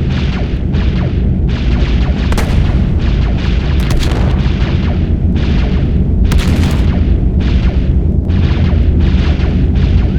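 Sci-fi space battle sound effect: a deep steady rumble under a rapid run of short blasts of weapons fire and explosions, about one to two a second, some with sharp high cracks.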